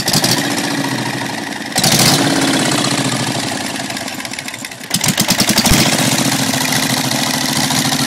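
Twin-cylinder diesel engine of a custom chopper running on the stand, with the throttle opened sharply about two seconds in and again around five seconds in, each time getting louder and then easing back.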